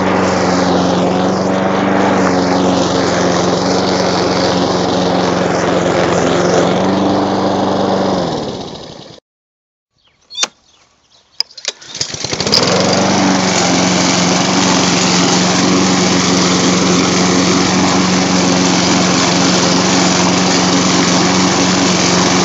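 Troy-Bilt 21-inch push mower's Honda engine running steadily while cutting tall brome grass. About eight seconds in it slows and dies away to silence. A few sharp clicks follow, then about twelve seconds in the engine starts up again and climbs back to steady running.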